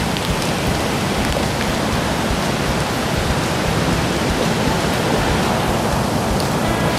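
Steady rushing of a mountain river, an even unbroken roar of running water.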